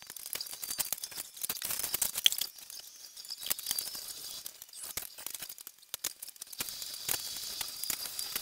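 Sped-up sound of hands handling small plastic pieces and paper on a table: a dense, rapid stream of high-pitched clicks and rustles.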